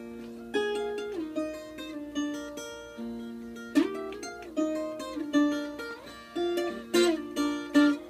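Viola caipira, the Brazilian ten-string folk guitar, played solo: a picked melody in paired notes, each note ringing out and decaying.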